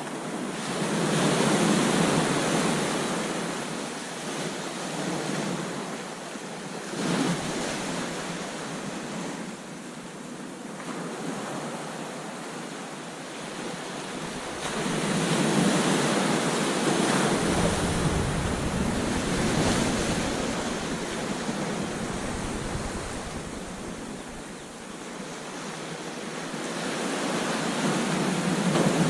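Ocean surf breaking on a sandy beach, the wash swelling and ebbing in waves, loudest around the middle and building again near the end.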